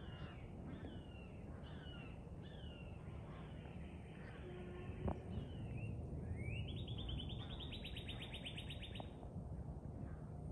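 American crows cawing overhead while mobbing a hawk: a quick series of four falling caws. About six and a half seconds in, a buzzy trill rises and holds for about two and a half seconds, and there is a single sharp click about halfway.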